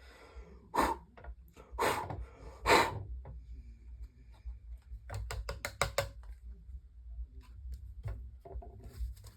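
Knocks and clicks from handling the plastic parts of a disassembled Holmes Blizzard desk fan: three sharp knocks in the first three seconds, then a quick run of about six clicks five to six seconds in.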